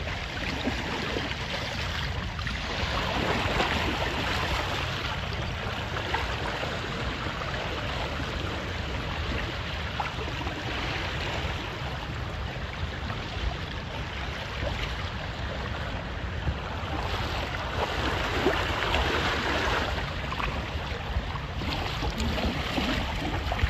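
Water rushing and splashing along the hull of a WindRider 16 trimaran under sail in choppy water, with wind buffeting the microphone. The rush grows louder a few seconds in and again near the end.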